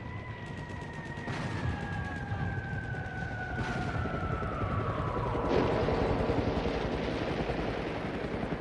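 Battlefield sound effects: rapid gunfire under a long falling whistle that drops steadily in pitch for about five seconds, like an incoming shell, then an explosion's rumble about halfway through.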